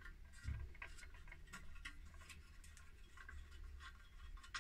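Faint clicks and light scraping of hands working the plastic bevel-lock knob and base plate of a circular saw, loosening a lock that is stiff because the saw is new. There is a soft knock about half a second in.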